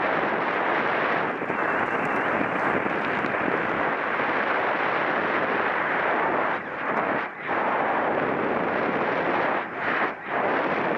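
Wind blasting across the camera microphone of a bicycle rider racing at speed, a steady rushing noise that eases off briefly a few times in the second half.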